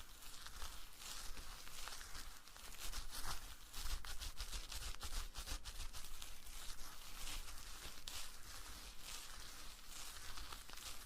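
Close-miked ASMR rustling and crackling: a dense, continuous stream of fine crackles and scratchy rustles.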